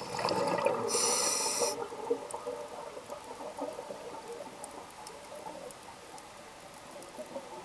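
Underwater sound of a scuba diver breathing: exhaled bubbles burble from the regulator, with a short sharp hiss about a second in, over a crackle of small clicks that carries on after the bubbles die down.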